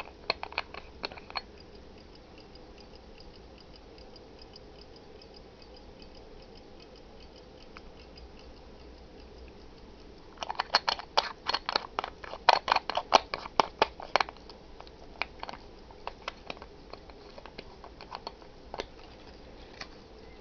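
An antique Elgin 18-size pocket watch ticking quietly and evenly, having just started running. About ten seconds in comes a few seconds of louder, irregular clicking, with a few scattered clicks after it.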